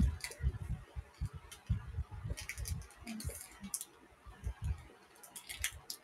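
Soft, irregular low bumps with a few scattered sharp clicks, the sound of movement right next to a phone's microphone.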